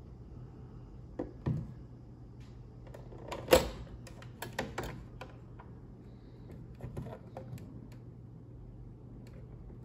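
Hard plastic clicks from a Zonerich thermal receipt printer being opened: a sharp click about three and a half seconds in as the cover-release button is pressed and the latch lets go, then lighter clicks and knocks as the top cover is lifted open. A couple of faint handling clicks come before it, over a low steady hum.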